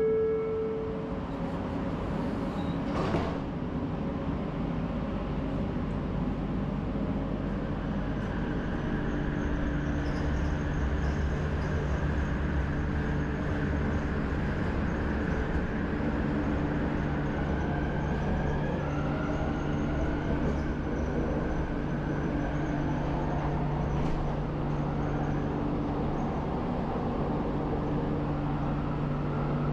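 Inside a Kelana Jaya line LRT car, a Bombardier Innovia Metro with linear induction motor drive: a single knock about three seconds in, then the train runs with a steady hum and a low rumble that swells for a while, a faint whine shifting in pitch over it.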